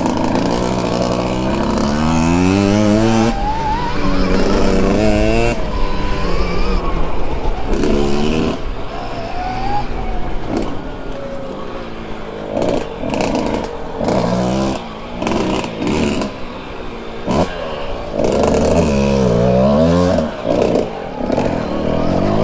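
Dirt bike running along a rough woods trail, its motor pitch rising and falling again and again with the throttle, the power cutting back in short dips in the second half. A constant low rumble runs underneath.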